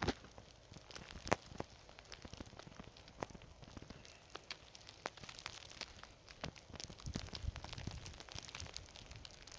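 Snowstorm: a scatter of irregular ticks and crackles, like snow striking nearby surfaces, with low wind rumble on the microphone in the last few seconds.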